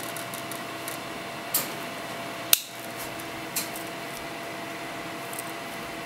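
Stainless steel implements of a Tool Logic Outdoor Companion MT-02 multitool being folded shut: about five short metallic clicks, the sharpest about two and a half seconds in.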